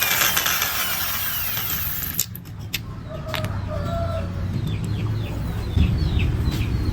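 Chickens clucking and giving short falling chirps, after a few sharp knocks, with a low rumble building in the background.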